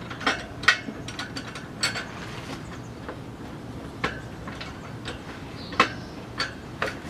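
Irregular sharp clicks and light knocks, about eight spread unevenly, as an inner tube is worked out of a motocross tire on a tire changing machine.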